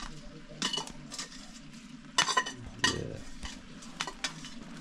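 Zirvak, the frying meat, onion and carrot base of plov, sizzling in a pot while a metal utensil stirs it, with several sharp scrapes and clinks against the pot.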